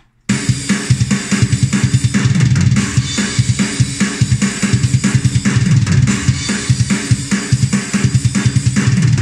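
Sampled metal drum kit from Ugritone's KVLT Drums II plugin (Metal Finland 2002 preset) playing a fast programmed beat at 145 BPM, starting abruptly just after the start: rapid kick drum strikes under a steady wash of cymbals, with a loud, crackly snare.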